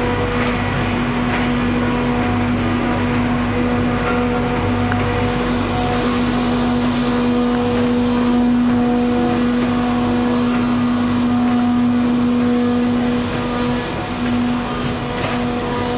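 Single-facer corrugated cardboard production line running: a steady machine drone with a constant hum tone.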